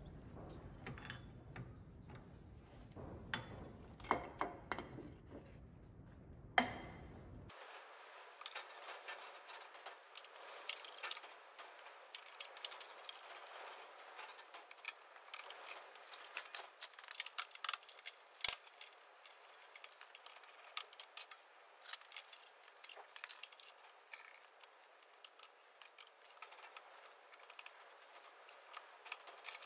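Irregular metal clicks, clinks and light knocks of a piston being set and clamped in a four-jaw chuck on a milling machine's rotary table, with the chuck key turned and the piston lined up under the spindle.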